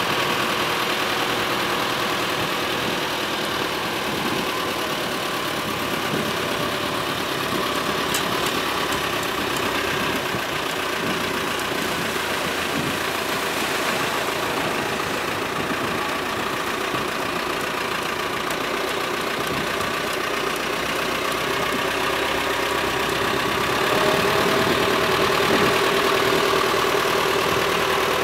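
Farm tractor engine running steadily as it tows a boat on its trailer, growing louder about four seconds before the end.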